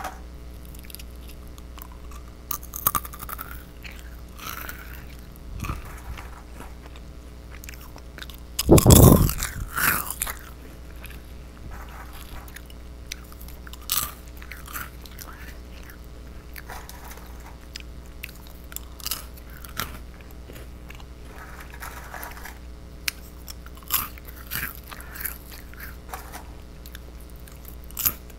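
Close-miked crunching and chewing of goldfish-shaped cheese crackers, in scattered bites. About nine seconds in there is one much louder burst of noise lasting about a second.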